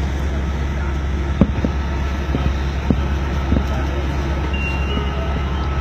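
Steady low rumble of an Okinawa monorail (Yui Rail) car in motion, heard from inside the car, with a few sharp knocks, the loudest about a second and a half in.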